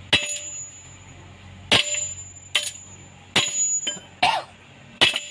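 Steel tool struck five times against a truck's propeller shaft while knocking off its worn centre hanger bearing: sharp metal clangs about a second apart, each with a short ring.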